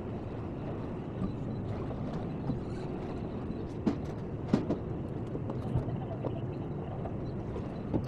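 Steady low rumble of a boat motoring, with a few sharp knocks about halfway through.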